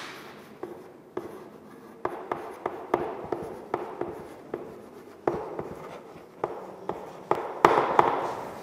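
Writing by hand: a run of irregular taps and short scratching strokes, about two a second, with a louder group near the end.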